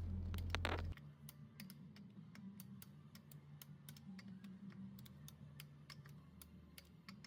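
A loud low steady hum that cuts off suddenly about a second in, followed by faint, irregular light clicks over a quiet low hum.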